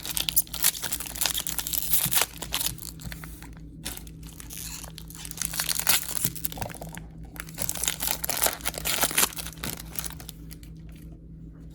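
Trading card pack wrapper crinkling and tearing as the pack is opened, in irregular spells of crackle, busiest in the first two seconds or so and again from about five to nine seconds.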